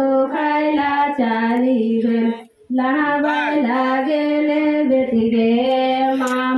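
A woman's voice singing a slow melody in long held notes, with a short break about two and a half seconds in.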